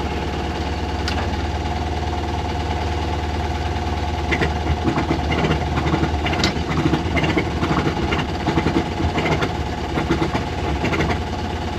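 Inboard auxiliary engine of a 1978 Allied Seawind II sailboat running steadily in forward gear at low speed, with a steady low hum and a few light knocks and rattles from about four seconds in.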